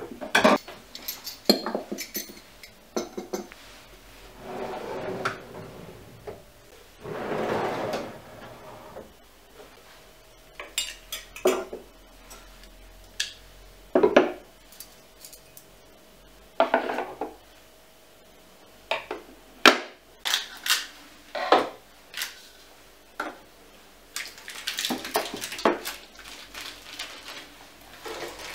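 Metal kitchenware being put away in a wooden drawer: bowls, lids and utensils set down with scattered clinks, knocks and clatter, between a few stretches of softer rustling and sliding.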